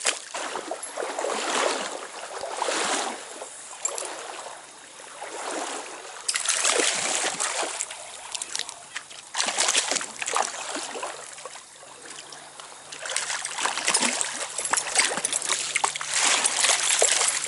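Stream water splashing and sloshing in irregular surges every second or two.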